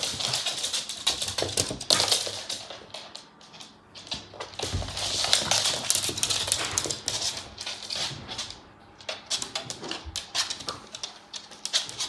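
Pembroke Welsh corgis moving about on the floor: irregular scuffling and quick clicks in bunches, with short lulls between them.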